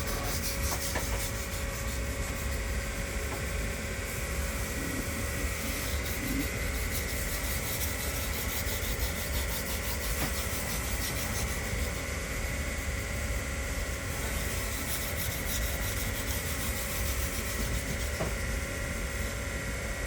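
Kitchen knife blade stroked back and forth over a wet 1,000-grit whetstone, a steady scraping rasp of steel on stone. The second side of the edge is being sharpened to raise a burr.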